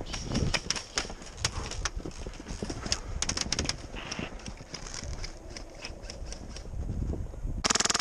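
Airsoft guns firing: scattered sharp snaps and clicks of shots and BBs throughout. Near the end comes a loud, rapid full-auto burst lasting about a second, from an HPA-powered airsoft RPK.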